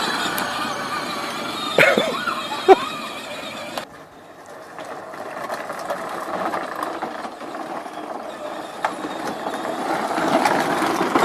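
Upgraded Power Wheels ride-on toy car running, its electric drive motors and plastic wheels rumbling; it fades about four seconds in and grows louder again toward the end. Two short squeals sound about two seconds in.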